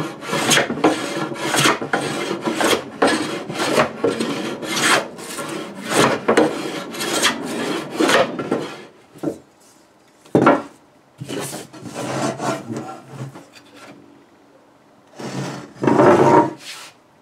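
Metal bench plane shaving an old board in quick back-and-forth strokes, each a rasping swish, about a dozen in the first nine seconds, then fewer strokes with pauses. It is taking down a high spot to get the twist out of the board. A louder, longer scrape comes near the end.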